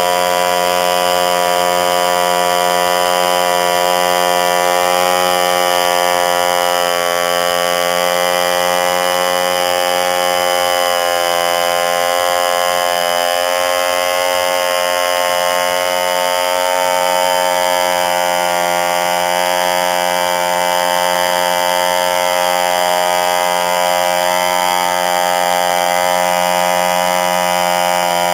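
SIM 2b 2.7 cc model diesel engine, a long-stroke side-port two-stroke, running steadily while turning a propeller. It holds one even pitch throughout.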